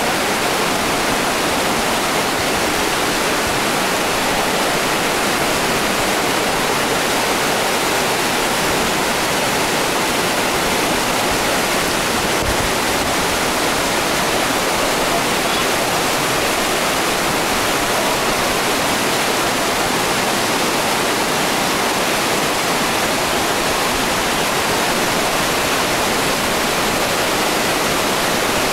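Fast-flowing stream rushing over rocks: a steady, loud rush of whitewater.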